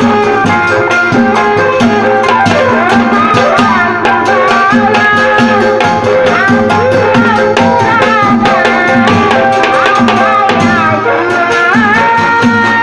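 Sundanese jaran renggong accompaniment music: hand drums beat a quick, steady rhythm under a wavering, gliding melody line. The melody settles on a long held note near the end.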